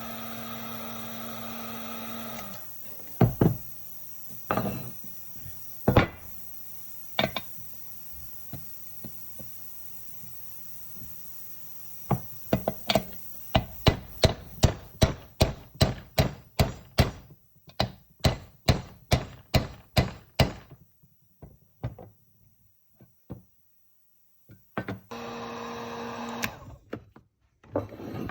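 Hammer knocks tapping a crankshaft bearing into place. A few single knocks come first, then a fast run of about two a second for some eight seconds, then a few light taps. A steady electric hum stops early on and starts again near the end.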